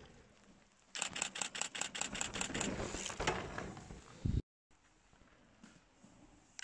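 Handling noise on a handheld camera's microphone: a run of quick scratchy clicks, several a second, for about three seconds, ending in a short thump. The sound then cuts out suddenly and stays near silent.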